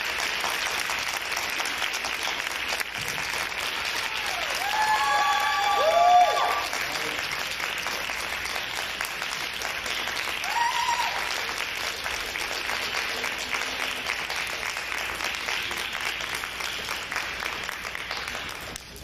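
Audience applauding, with a few whooping cheers about four to six seconds in and again about eleven seconds in. The applause fades away near the end.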